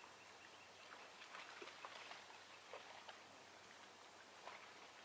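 Near silence: faint outdoor ambience with a few soft, short sounds scattered through it.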